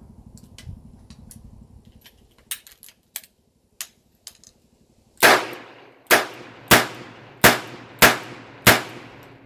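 Smith & Wesson Model 19 revolver firing six rounds of .38 Special in quick succession, the shots under a second apart, each with a short ringing tail. A few lighter sharp clicks come a couple of seconds before the first shot.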